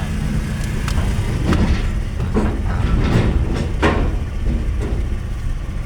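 Steady low rumble of a ferry's engines, with several sharp metallic knocks and clanks about a second apart in the middle.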